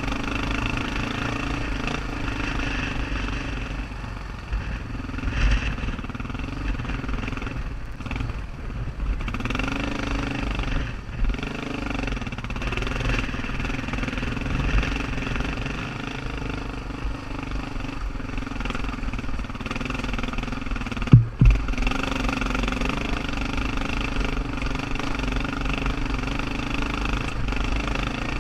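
Motorcycle engine running at low speed under load while climbing a rough rocky trail, its note dipping and rising again about ten to twelve seconds in. Two sharp knocks stand out about two-thirds of the way through.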